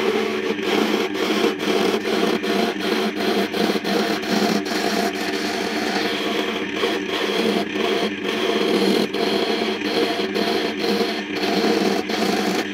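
Wood lathe running while a hand-held turning chisel cuts a spinning coconut-wood spindle: a steady, rough scraping of the cut, broken by many brief dips.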